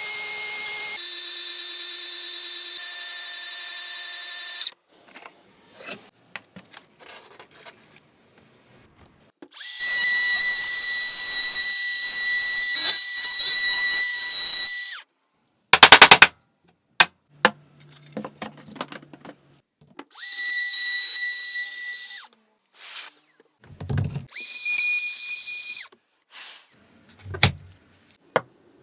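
Power tools working wood in a series of short runs. First a steady motor whine that shifts pitch twice, then several rougher cutting runs with quiet gaps between them. About halfway through comes a quick cluster of sharp knocks, the loudest sound.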